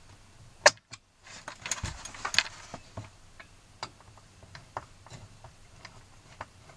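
Small flat-blade screwdriver working a stiff screw out of the wooden reed block of a Hohner Carmen accordion. A sharp click comes just under a second in, then a short stretch of scraping and rattling, then light scattered ticks of metal on wood.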